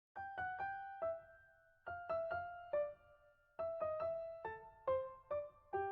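A simple melody on a piano or electric keyboard: single notes struck one at a time in three short phrases, each note ringing and fading.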